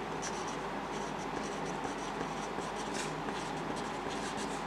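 Pencil writing on a sheet of paper: a run of short strokes as words are handwritten.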